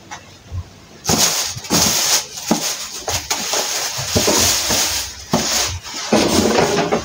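Thin black plastic garbage bag crinkling and rustling as it is pulled off a cardboard stove box, starting about a second in.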